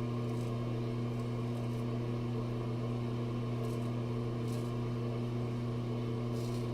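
A steady low electrical hum, with a few faint short scrapes of a straight razor passing over lathered stubble.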